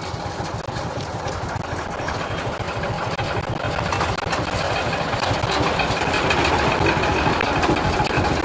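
Diesel locomotive engine running with a fast, even knocking beat, slowly getting louder.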